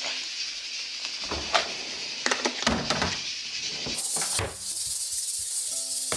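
Refrigerator drawer pulled open and a plastic storage container lifted out and carried to a counter: a few irregular knocks and clatters over a steady hiss.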